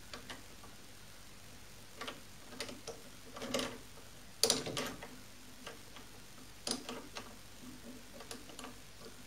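Scattered light metallic clicks and knocks from small steel parts being handled and fitted at a mini lathe's cross-slide, irregular and with the loudest knock about halfway through; no machine is running.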